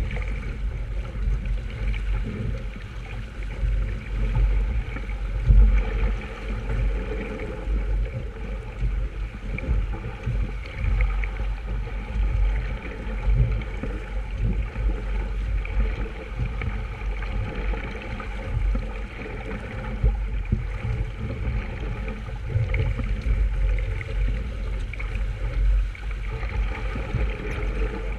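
Wind buffeting the microphone in irregular gusts over water rushing along a sailboat's hull.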